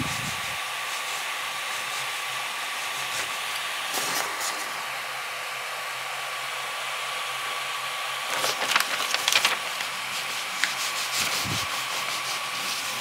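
An Ender 3D printer's cooling fan runs steadily with a thin whine. About four seconds in, and again for a couple of seconds around eight to ten seconds in, a sheet of paper scrapes under the hot nozzle as it is slid to test the bed-levelling gap. A light scratch like this means the nozzle is just touching the paper.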